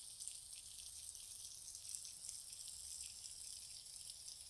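Faint, steady sizzling of kielbasa slices and pierogies frying in butter on a flat-top griddle, with small crackles throughout.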